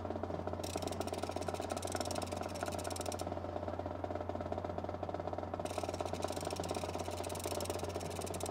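A steady low hum with a fine, even buzz, like a small engine or electrical equipment running.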